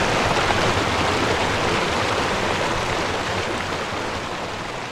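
A steady rushing noise that sounds like water, slowly fading.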